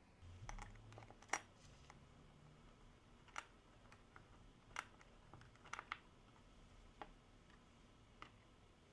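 Sharp, irregular clicks and taps of small metal parts handled and fitted into the aluminium gear housing of a Makita DF458D cordless drill during reassembly. There are about seven clicks in all, the loudest just over a second in, and a brief low handling rumble at the start.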